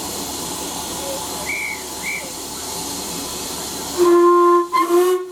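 The steam whistle of LMS Ivatt Class 2MT tank engine No 41313 sounds for departure: a long toot then a short one near the end. Underneath is a steady hiss of escaping steam, and two short high chirps sound earlier.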